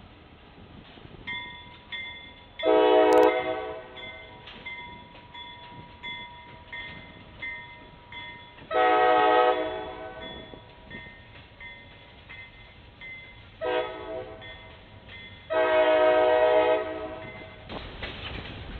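CSX freight locomotive's multi-chime air horn sounding two long blasts, a short one and a final long one. This is the standard long-long-short-long warning for a grade crossing. Near the end the rumble of the approaching train comes up.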